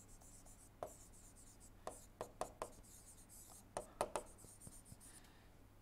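Faint taps and scratches of a stylus writing by hand on an interactive display screen: a series of short ticks in small clusters as the letters are formed.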